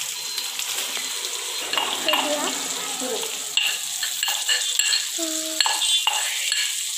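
Chicken pieces sizzling as they fry in a kadai over a gas flame, with a spoon stirring and scraping in the pan and small metal knocks.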